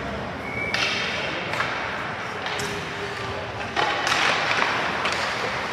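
Ice hockey play: skate blades scraping the ice in repeated bursts, the loudest from about four seconds in, with sharp clicks and thuds of sticks and puck.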